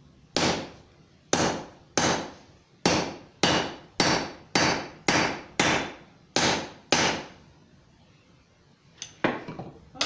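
Blacksmith's hand hammer striking hot steel on the anvil, about eleven ringing blows at a steady working pace, driving a radiused groove into a forged ring. Near the end come a few lighter knocks and a clatter of metal.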